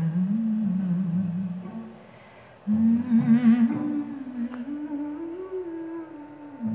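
A hummed, wordless melody played back through a small PCL84 valve amplifier under test and its speaker. The melody drops away about two seconds in and comes back half a second later on higher notes.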